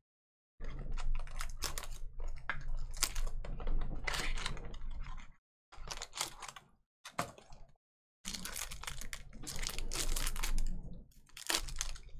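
Trading cards and foil pack wrappers being handled: a dense run of crisp crinkling, rustling and clicking, broken by a few brief dropouts around the middle.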